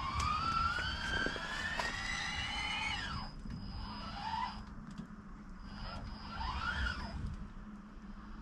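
Motor whine rising steadily in pitch for about three seconds, then dropping, followed by three shorter rising-and-falling whines, as a machine drives on a test run in wet snow. A steady low hum runs underneath.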